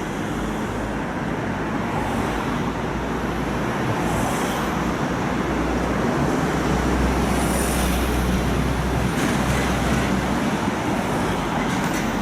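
Road traffic on a city street: a steady wash of vehicle and tyre noise over a low engine rumble that swells a little in the middle. No siren is heard.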